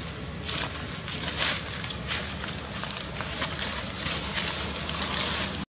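Outdoor ambience: a steady low wind rumble on the microphone under a high hiss that swells and fades, with a few short crackles of dry leaves as a macaque shifts about. The sound cuts out abruptly near the end.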